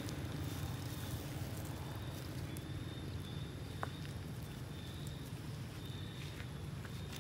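Steady low outdoor rumble, with a few faint clicks and scrapes of gravel as long-tailed macaques move and forage on pebbly ground, the clearest click about four seconds in.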